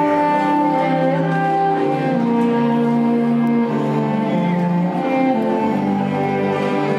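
Orchestral music led by bowed strings, with long held notes that change every second or so.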